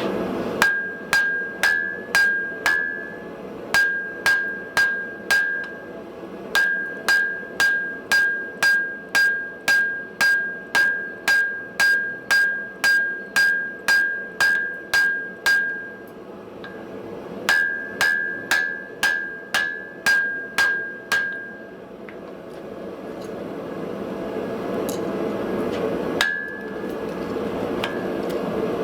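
Hand hammer blows ringing on the anvil, about two a second, in three runs with short pauses: a wrought iron and spring steel billet being hammered on edge to narrow it. A steady rushing noise lies underneath and grows louder near the end.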